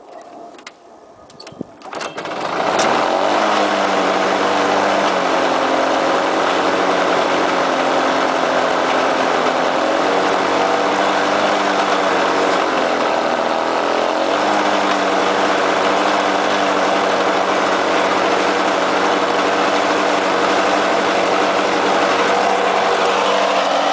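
Lawn-Boy 10401C mower's two-stroke F engine catching on a cold start about two seconds in, then running steadily at speed, its pitch wavering slightly now and then.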